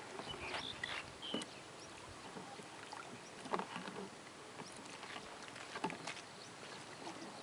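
Light splashing and lapping of river water as a child wades and pushes floating plastic containers, with a few short splashes or knocks scattered through, the clearest about three and a half and six seconds in.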